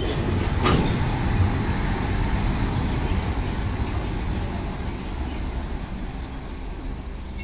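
Freight train rolling slowly through a station: a steady rumble of wheels and running gear, with one sharp metallic clank about a second in, easing off a little toward the end.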